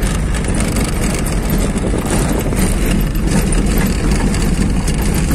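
Car driving along a rough dirt road: steady engine and tyre noise with irregular rattles from the bumps.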